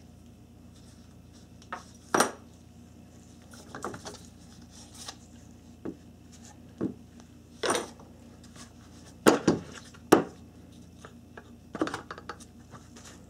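Bad radiator cooling fan motor turned and rocked by hand, giving irregular clunks and metallic clicks, two louder knocks about three quarters through: its bearings are worn out, with a lot of play in the shaft.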